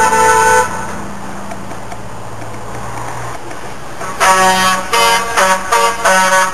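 A truck horn held and cutting off about half a second in, then a few seconds of truck engines running as they pass. About four seconds in, a truck horn sounds a string of four or five short toots.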